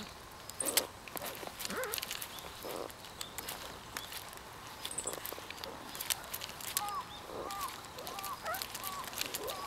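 Animal calls: short arched notes, several repeated in quick succession near the end, with scattered sharp clicks.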